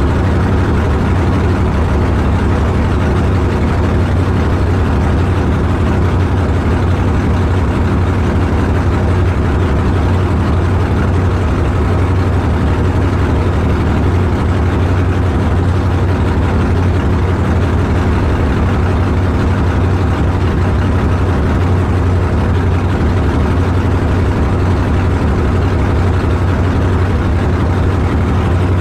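Car engine running steadily at a constant low speed, a loud, deep, even drone with no revving.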